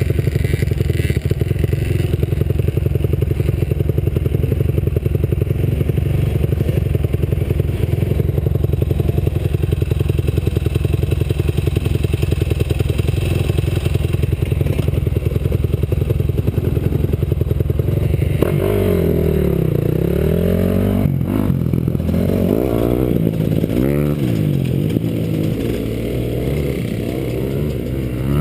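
Small dirt bike engine running at a steady pitch, then about two-thirds of the way through revving up and down in repeated rises and falls.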